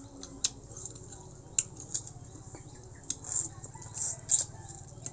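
Scattered sharp clicks and short crunches from people eating food by hand, over a low steady hum.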